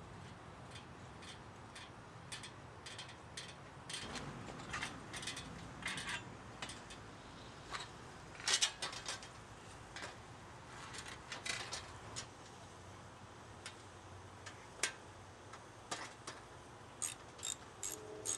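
Irregular clicks and clacks of hand tools and loose parts during the disassembly of an old, rusty folding bicycle, with the loudest cluster of knocks about halfway through.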